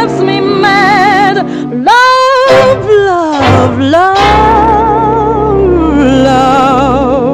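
A woman singing a slow torch-song ballad with wide vibrato over a dance band: about two seconds in her voice swoops up to a held high note, slides down, then rises into a long held note.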